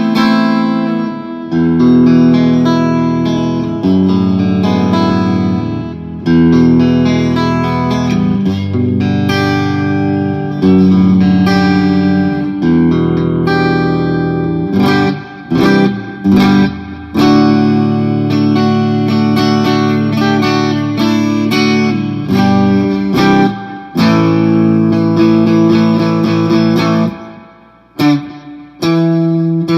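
PRS Singlecut electric guitar played clean through its piezo bridge pickup into a JCM2000 amplifier, giving an acoustic-like tone. Strummed and picked chords ring out, mostly changing about every two seconds, with a few short breaks.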